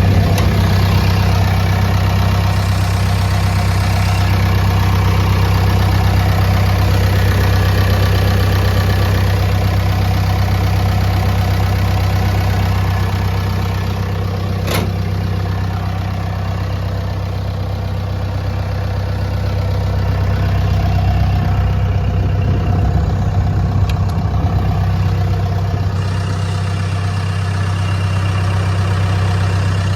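New Holland D95B crawler dozer's diesel engine idling steadily, with a single brief click about halfway through.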